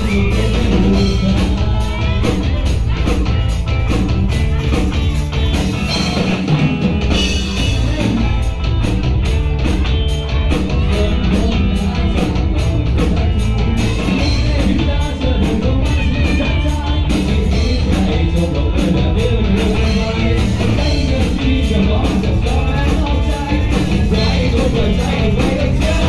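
A live rock band plays: electric guitars, bass guitar and drum kit keep a steady beat, with a singer's voice over them. The bass and drums drop out briefly about six seconds in, then come back in.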